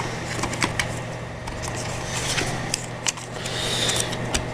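SATA hard drive in its thin metal caddy being lined up and slid into a laptop's drive bay: light clicks and short scrapes of metal against plastic, over a low steady hum.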